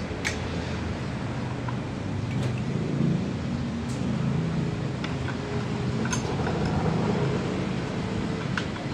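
Steady low rumble of vehicle engines in the street, with about five sharp metallic clicks spread through it from hand work on the exposed rocker arms of a truck diesel.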